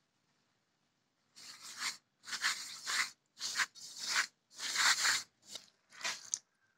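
A hand mixing dry flour in a steel bowl: a run of about seven crunching, scraping strokes as the fingers rub and push through the flour.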